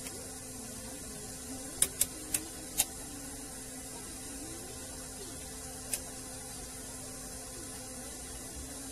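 Four sharp clicks within about a second, then one more a few seconds later, from a multimeter's test probes and meter being handled while a CRT TV's horizontal output transistor is tested. A steady low hum and hiss run underneath.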